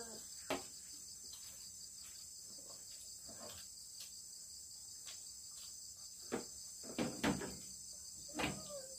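Steady high-pitched chorus of crickets. A few short knocks and clinks of spoons and plastic dishes come through it, one about half a second in and several in the last three seconds.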